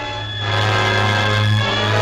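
Orchestral film score playing sustained chords over a low held note, swelling louder about half a second in.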